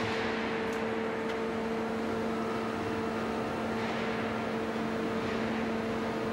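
Steady hum of factory machinery at a stainless steel sheet stacking and packing line, with a couple of faint ticks about a second in.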